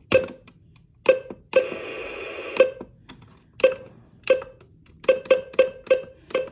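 AlertWorks EAR-10 weather radio beeping through its speaker as its buttons are pressed. There are about ten short beeps, and one longer tone of about a second starts about one and a half seconds in.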